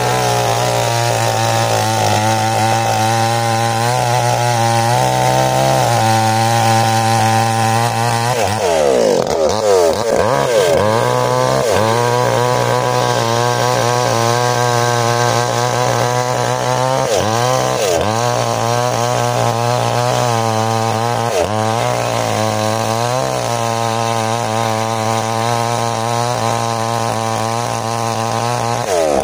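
Small chainsaw at full throttle cutting into a hard ironwood trunk. Its engine note repeatedly sags and climbs back as the chain bogs down in the dense wood, most deeply about eight to eleven seconds in.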